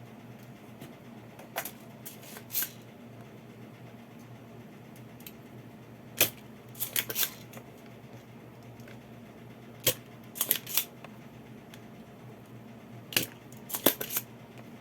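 Spring-loaded desoldering pump (solder sucker) being fired and re-cocked while clearing solder from an IC's pins. From about six seconds in, it goes three times: a sharp snap as the plunger releases, then a quick cluster of smaller clicks. A steady low electrical hum sits underneath.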